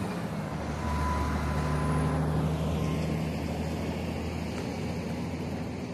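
A distant engine running steadily, a low hum with a faint whine, swelling about a second in and slowly fading away.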